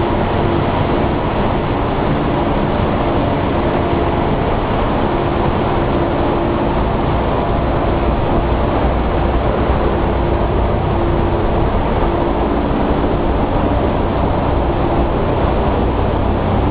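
Paper machine running: a loud, steady industrial drone with a few held hums, unchanging throughout.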